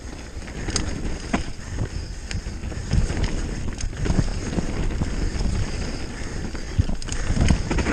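Full-suspension Giant Reign mountain bike descending a dry dirt forest trail at speed: tyres rumbling over dirt, roots and rocks, with the chain and frame parts rattling in irregular knocks.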